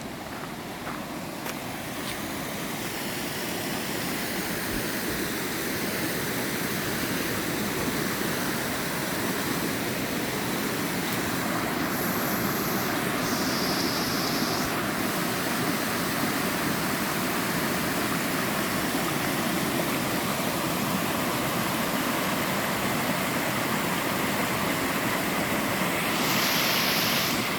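Rushing water of the Lainbach mountain creek, a steady dense roar that grows louder over the first few seconds and then holds.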